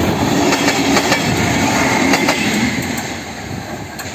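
A train rolling along the track: a loud rumble with sharp clicks of wheels over rail joints, easing off over the last second or so.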